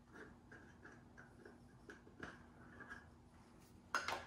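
Faint, light scratching and tapping of spice powder being added to a bowl of flour, about three strokes a second, with two sharper knocks near the end.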